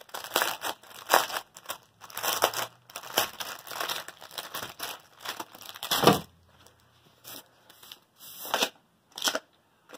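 Packaging around a rolled canvas crinkling and tearing as it is unwrapped: a dense run of rustles for about six seconds, then two short crinkles near the end.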